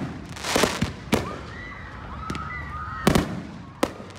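Aerial fireworks shells bursting overhead: a string of sharp bangs about half a second to a second apart, some trailed by a hiss, with the loudest bang about three seconds in.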